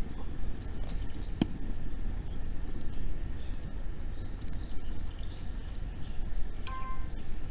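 Wood fire crackling, with scattered sharp pops, one stronger pop about a second and a half in, over a steady low rumble. A brief pitched chirp comes near the end.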